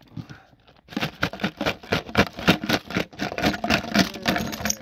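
Small plastic toys and trinkets rattling and clattering as they are shaken out of a mayonnaise jar onto pavement. A fast, dense run of clicks and knocks starts about a second in.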